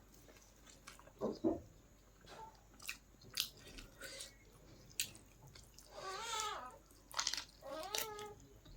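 Close-up chewing and biting with scattered small crunches and mouth clicks, then a cat meowing twice in the second half.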